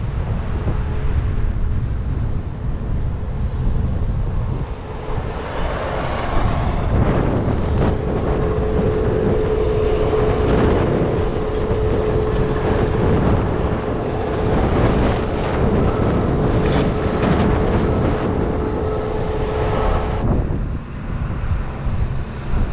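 Farm machinery engine running under heavy wind buffeting the microphone. A steady whine joins about eight seconds in and stops abruptly about twenty seconds in.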